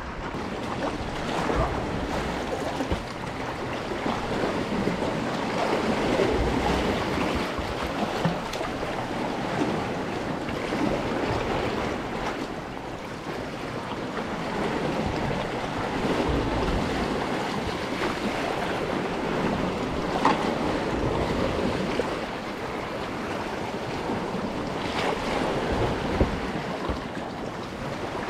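Sea water sloshing and splashing around a sea kayak's hull and against rocks, rising and falling in slow surges, with wind noise on the microphone.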